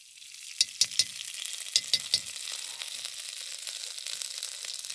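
Chopped garlic and ginger sizzling in hot oil in a nonstick electric wok, the sizzle swelling up over the first second. A few sharp clicks of a spoon and spatula against the pan come in the first two seconds.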